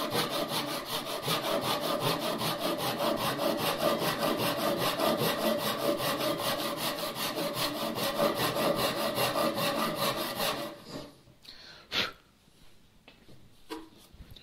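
Japanese ryoba pull saw cross-cutting a pine 2x4, with quick, even rasping strokes that stop about eleven seconds in. A single sharp knock follows a second later.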